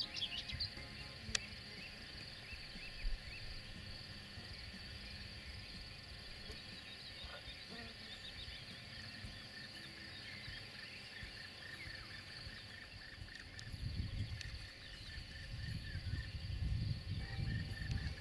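Meadow ambience: a steady high insect chirring with small bird calls scattered over it. Low wind rumble on the microphone grows louder in the last few seconds.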